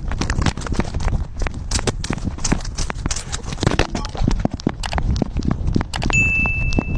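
Rapid, irregular knocking and rustling from a camera strapped to a moving cat: its steps and the mount rubbing and bumping against it. A brief, steady high tone sounds near the end.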